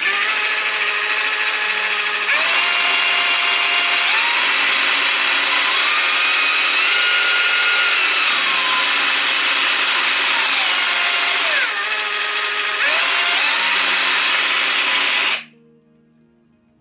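SKIL 3440 20V brushless cordless jigsaw running through its speed settings, its steady whine stepping up in pitch three times, then dropping, rising once more, and stopping suddenly near the end.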